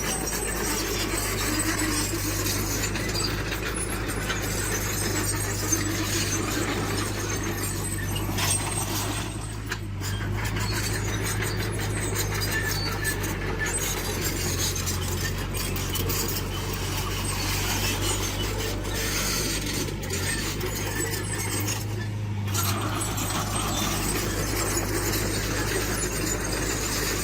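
Diesel engine of heavy earthmoving machinery running steadily at a constant pitch, with a noisy mechanical layer above the engine hum.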